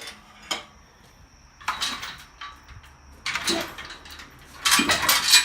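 Handling noises: a click, then several bursts of clattering and scraping, the loudest near the end.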